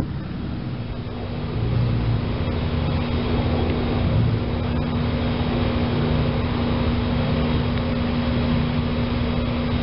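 Train approaching in the distance: a low rumble with a steady hum, growing a little louder after about a second and a half.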